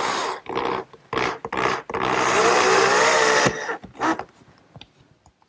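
Electric drill driving a wood screw into a pine frame: a few short trigger bursts, then a longer run of about a second and a half as the screw sinks in, then two brief bursts to seat it.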